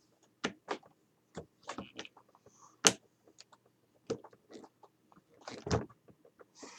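Irregular clicks and knocks from working a reloading press fitted with a Hornady cam-lock collet bullet puller, as a cartridge is set in and the bullet pulled. The sharpest knock comes about three seconds in.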